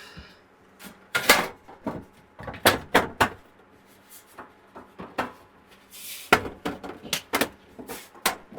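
Irregular clicks, knocks and clatter of parts being handled and fitted during reassembly of a Sony STR-DH190 stereo receiver, with a short scrape about six seconds in.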